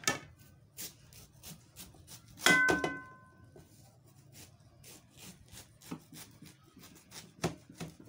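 A kitchen knife cutting through watermelon rind, with a run of short crisp crunches and clicks. About two and a half seconds in comes a louder knock with a brief metallic ring.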